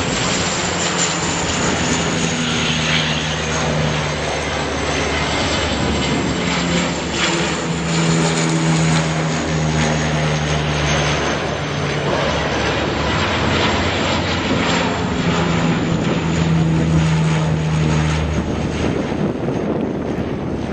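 Canadair amphibious water bomber's twin propeller engines droning as it flies low overhead, over a steady rushing noise. A low pitched propeller hum swells and fades three times.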